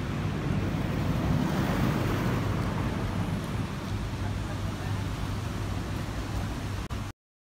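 Road traffic noise, with a vehicle passing in a swell about a second or two in, then a steady rumble until the sound cuts off suddenly near the end.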